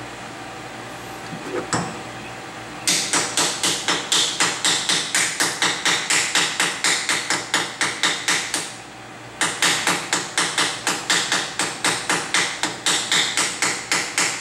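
Fly cutter on a small benchtop mill striking a cast aluminium box once per revolution: a fast, even train of sharp knocks, about four to five a second, over the steady hum of the running spindle motor. The knocking breaks off briefly in the middle, then resumes.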